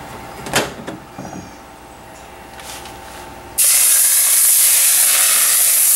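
Very hot cooking oil poured from a frying pan onto blended chili peppers, chopped cilantro, garlic and onion in a glass bowl, setting off a loud, steady sizzling hiss that starts suddenly about three and a half seconds in. A single sharp knock comes about half a second in.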